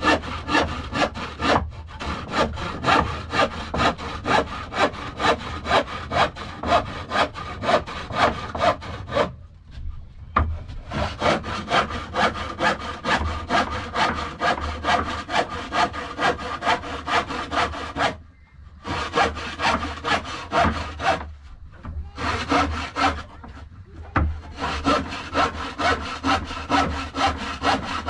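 Rhythmic back-and-forth scraping strokes, about two a second, with a few short pauses between runs.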